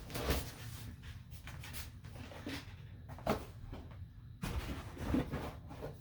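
Handling noise as things are packed back into a cardboard box: scattered knocks and scraping, with a few sharper knocks near the start, at about three seconds and around four and a half to five seconds in.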